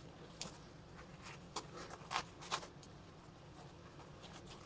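Hands rustling and scraping the fabric and webbing of a tactical vest while fitting a pouch onto it, with several short scratchy strokes in the first couple of seconds, then quieter handling.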